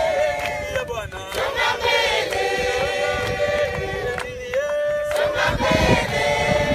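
A crowd of men, women and children singing together in welcome, holding long notes, with hand-clapping.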